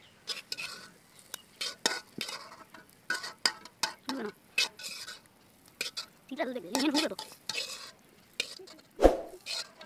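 A spatula stirring and scraping in a wide metal wok, making irregular clicks and knocks, while pieces of egg-coated bread fry in hot oil with a faint sizzle. A heavier knock comes near the end.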